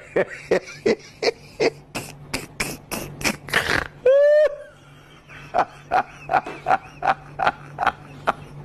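Comedy sound effect of quick tiptoe footsteps, a run of short taps about three a second, broken about four seconds in by a short, loud pitched squeak.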